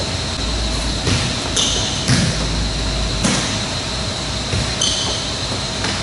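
A volleyball hitting with a few sharp thuds during passing drills, with two short squeaks of sneakers on the sport-court floor, in a large echoing gym over a steady background hum.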